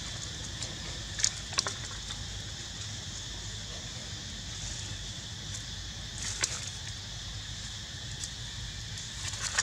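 Steady high drone of insects, with a few short scuffs or knocks about a second in, around the middle and near the end.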